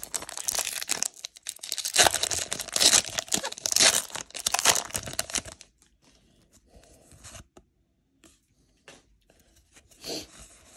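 Foil wrapper of a Pokémon trading-card booster pack being torn open and crinkled, a dense crackling that stops about five and a half seconds in.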